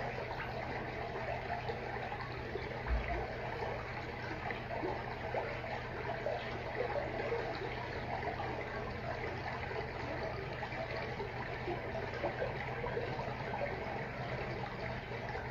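Aquarium water trickling and splashing steadily, a dense fine crackle of moving water over a steady low hum, with one soft low thump about three seconds in.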